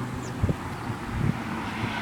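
Wind buffeting an outdoor microphone, with uneven low thumps about half a second and a second and a quarter in. A steady low hum from before stops just after the start.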